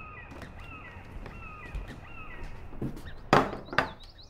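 Birds calling over and over in short, falling calls about twice a second. About three seconds in, two loud sharp knocks come half a second apart.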